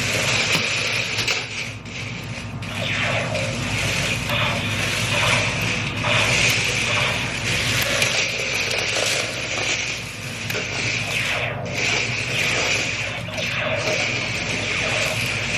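Small electric motors and plastic gearboxes of two Laser Battle Hunters RC toy tanks whirring as the tanks drive and manoeuvre, a steady gear whine throughout.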